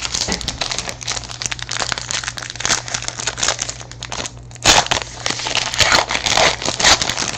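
Foil trading-card wrappers crinkling and tearing as packs are ripped open, a dense run of irregular crackles that grows louder about two-thirds of the way through.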